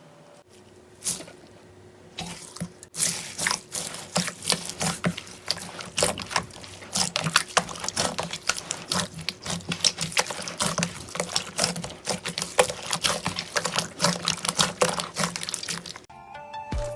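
Slime being squeezed and pressed by hand, a dense irregular run of wet clicks and pops that picks up about three seconds in. Music comes in just before the end.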